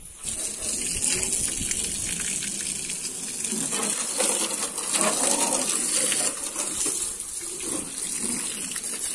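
Water jet from a hose spraying against the metal front of a truck and splashing onto the ground below: a steady hissing gush with splatter.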